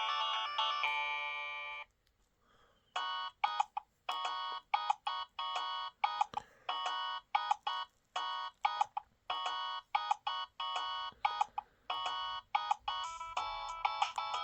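Nokia 6030 polyphonic ringtones playing through the phone's speaker. One melody stops about two seconds in. After a short pause the next ringtone starts with short, clipped chords, about two or three a second, and near the end it becomes a fuller, more continuous tune.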